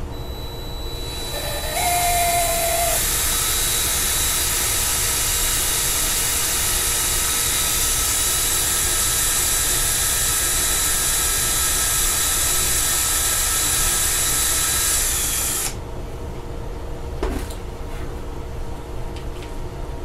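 Cordless drill spinning a small twist bit through a thin plastic microwave door latch. It starts about two seconds in, runs at a steady whine for about fourteen seconds, then cuts off.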